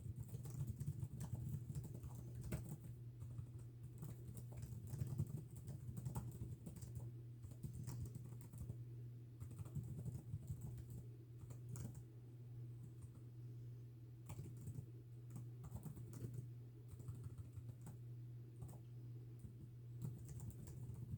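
Typing on a computer keyboard: irregular runs of keystroke clicks with brief pauses, over a steady low hum.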